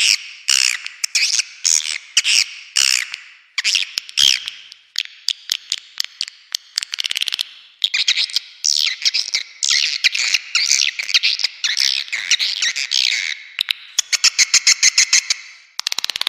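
Edible-nest swiftlet calls played as a lure sound for a swiftlet house: dense, fast chirping and twittering broken by rapid runs of clicks, in short phrases with brief pauses.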